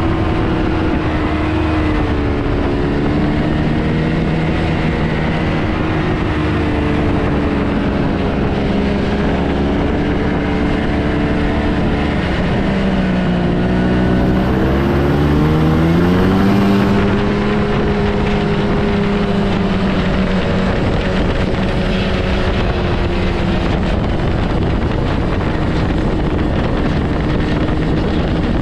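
Yamaha Bravo snowmobile's two-stroke engine running steadily under way. Its pitch drops about twelve seconds in and climbs back a few seconds later as the throttle eases and opens again.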